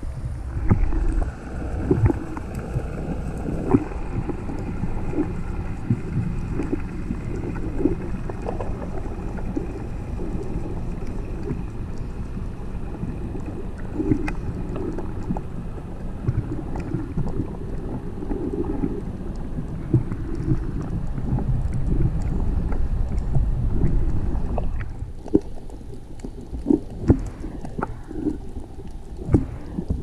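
Muffled underwater sound picked up by a submerged GoPro Hero5 Black: a steady low rumble of moving water with scattered clicks and knocks. It grows quieter about 25 seconds in.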